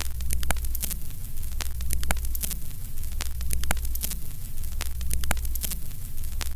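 Old film projector sound effect: a steady low hum under static crackle, with a sharp click about twice a second.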